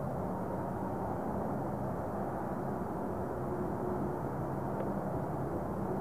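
Steady roar of freeway traffic, an even rushing noise with no distinct vehicles standing out.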